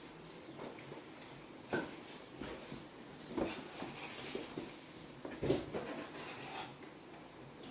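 Irregular light knocks, taps and rustles of something being handled, with the loudest knocks about two, three and a half, and five and a half seconds in.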